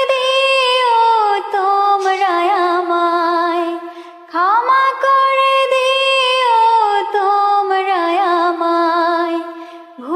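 Wordless sung vocal line of an Islamic nasheed-style ringtone: two long held phrases, each sliding slowly down in pitch with ornamented turns, the second beginning about four seconds in.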